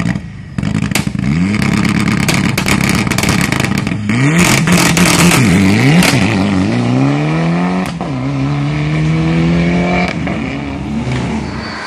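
Mitsubishi Lancer Evo IX rally car's turbocharged four-cylinder engine held at high revs on the start line with many sharp pops, blipped up and down, then launching away: the revs climb, drop at a gear change about eight seconds in, climb again and fade as the car drives off.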